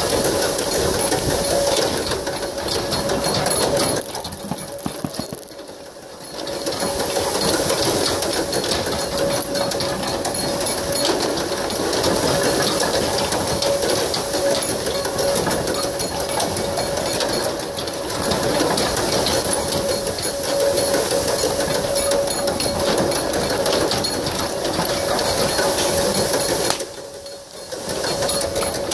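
Continuous dense rattling clatter, with a steady hum running under it, as a pair of racing bulls drags a wheeled wooden frame through sand. The clatter drops away briefly twice, about five seconds in and again near the end.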